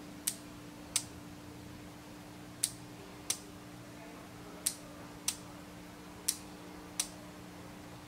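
Push button and small relay on a perfboard circuit clicking as the button is pressed and released, the relay pulling in and dropping out: eight sharp clicks in four pairs, about two-thirds of a second apart within each pair. A faint steady hum runs underneath.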